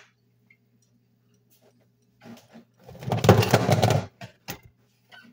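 Rustling and clattering of household things being moved and handled, with a few knocks, as a jug of cooking oil is fetched; the burst is loudest about three to four seconds in. A steady low hum runs underneath.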